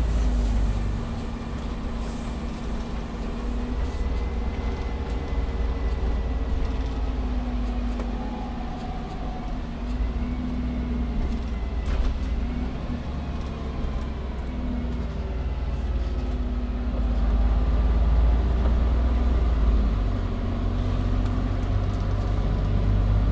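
SOR NB12 city bus heard from inside while riding: the engine runs with a steady low rumble whose loudness and pitch rise and fall as the bus drives, with faint whines gliding up and down. A single sharp click comes about twelve seconds in.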